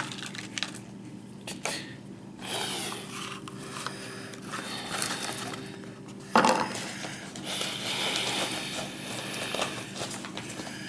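Rubbing and scraping of a handled camera against wooden and carpeted surfaces, with a sharp knock about six seconds in, over a steady low hum.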